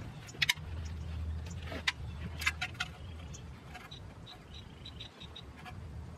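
Fabric rustling and light clicks as a jacket and its foam armor pads are handled, over a low steady rumble.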